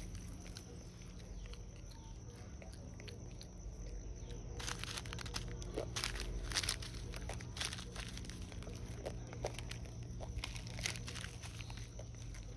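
A macaque handling a foil snack packet: crinkling and crackling plastic, starting about halfway in, with a few sharp snaps, over a low steady background hum.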